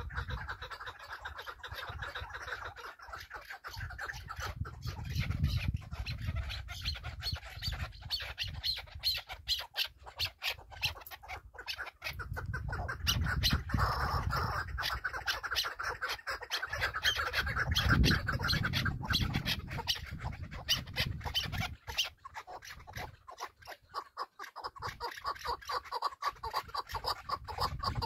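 A partridge calling: a long run of rapid clucks that swells and fades in loudness.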